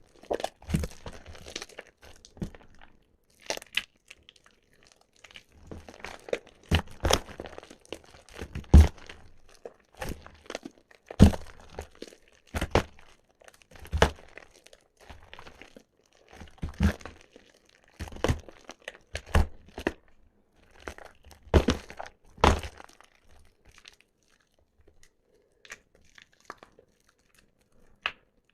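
Soaked bar soap being squeezed and crushed, giving irregular crunching and crackling sounds, some much louder than others. They thin out to a few faint crackles near the end.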